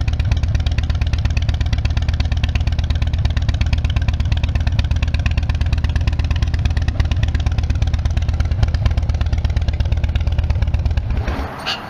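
2016 Harley-Davidson Dyna Wide Glide's Twin Cam 103 V-twin running steadily at idle through Vance & Hines Big Radius exhaust pipes. The sound stops abruptly near the end.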